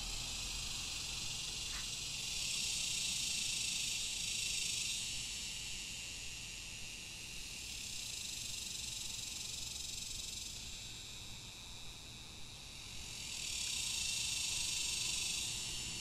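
Cicadas buzzing in a steady high-pitched chorus that swells louder and fades back three times, roughly every five seconds.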